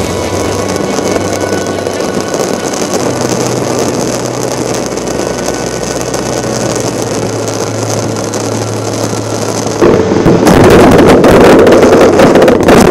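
Fireworks going off: a steady dense rushing noise from burning fountains and aerial effects, turning louder with rapid crackling about ten seconds in.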